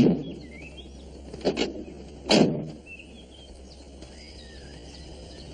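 Birds chirping over a steady outdoor background hum, broken by three sharp knocks: one at the start, one about a second and a half in, and the loudest a moment later.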